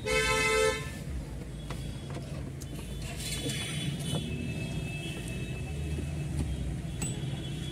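A short, loud horn-like tone in the first split second, then a steady low rumble with a few faint clicks of plastic dashboard trim being pried and handled.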